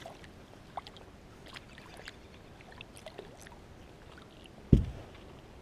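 Light water trickling and lapping at the side of a kayak, with scattered small clicks, as a small rainbow trout is brought alongside by hand. One dull, low thump sounds near the end.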